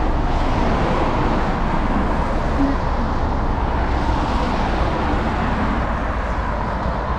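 Steady rushing noise of wind buffeting the microphone, mixed with the rush of road traffic.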